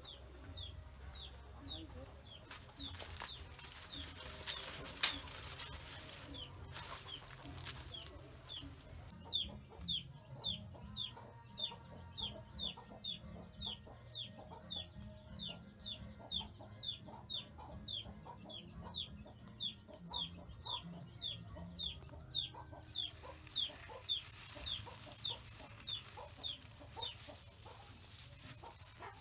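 A poultry chick peeping: a long, steady run of short, high, falling peeps, about two a second.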